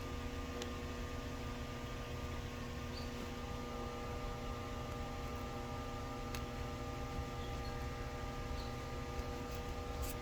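Steady electrical hum, several fixed tones over a faint hiss, with a couple of faint ticks.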